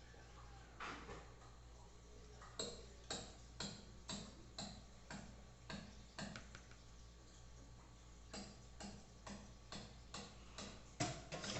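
Faint, regular knocks of a kitchen utensil against a bowl, about two a second, with a short pause partway through, as the pudding mixture is worked in the bowl.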